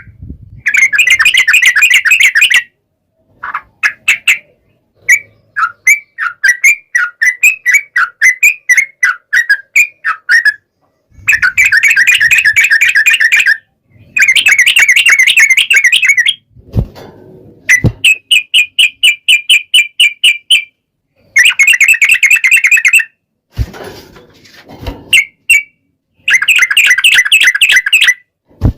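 Yellow-vented bulbul (trucukan) song: loud bursts of fast, bubbling notes, several phrases running into long rapid trills of two to three seconds, separated by short pauses. A few brief low knocks fall between the phrases.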